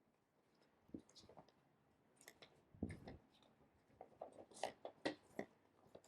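Faint handling sounds: scattered light clicks and rustles, a little louder about halfway through.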